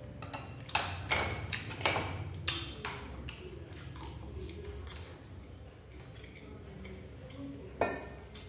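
Chopsticks clicking against a porcelain bowl as food is scooped from it to the mouth: a run of sharp clinks in the first three seconds, then softer eating sounds, and one more clink near the end as a spoon strikes the bowl.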